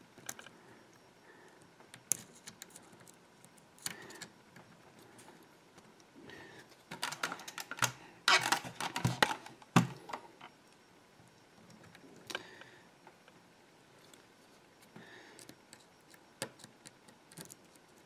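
Small metal clicks and scratches of a pick and tension tool working the pins of a tubular Kensington laptop lock during single-pin picking, with a denser run of clicking and scraping about seven to ten seconds in.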